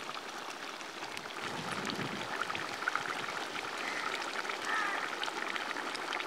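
Chicken curry bubbling in a large aluminium kadai: a steady hiss of simmering broth with many small pops and crackles, and a couple of faint short calls in the background.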